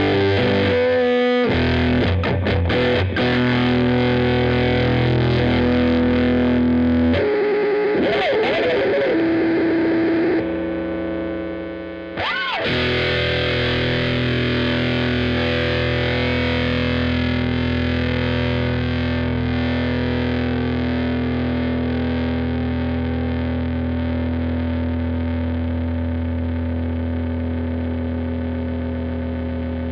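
Squier VM Jazz played through a Killer Otter Electric Party Animal fuzz pedal into an AC30 amp modeller: thick distorted fuzz chords and notes. There are a few quick strums near the start and a wobbling bent note around the middle, then a chord is left to ring and slowly fade.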